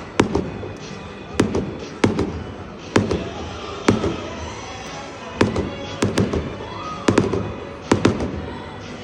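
Fireworks shells bursting in a steady barrage: about a dozen sharp bangs, roughly one a second, coming closer together and in quick pairs in the second half. Music plays underneath throughout.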